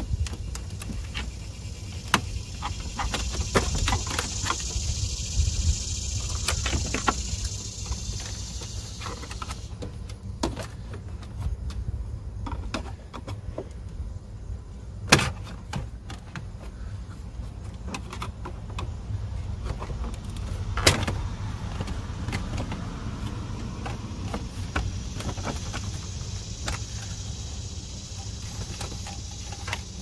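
Plastic dashboard trim bezel of a 2007 Ford Focus being pried loose with a screwdriver and pulled off: scattered clicks and scrapes from the plastic clips and tool, with two sharp snaps about fifteen and twenty-one seconds in.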